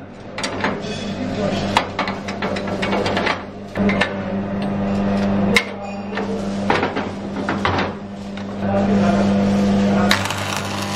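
Metalworking shop: a machine running with a steady electric hum, with many irregular metal knocks and taps from hand work on metal parts.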